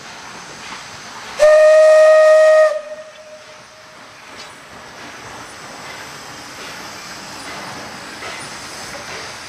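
ČSD class 433.0 steam tank locomotive sounding one steam whistle blast of about a second, starting about a second and a half in, with a fainter trailing note after it. The rest is the locomotive's steady hiss and running noise as it moves slowly along the track.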